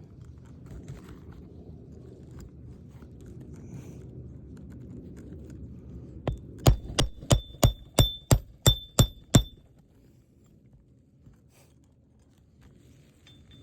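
A hammer driving a roofing nail into an asphalt shingle: about ten quick strikes, roughly three a second, each with a short metallic ring, starting about six seconds in.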